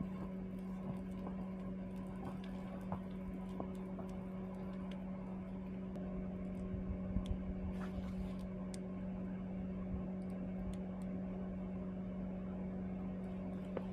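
Steady hum of a small motor or fan, one even tone with fainter overtones, with scattered light ticks and clicks over it.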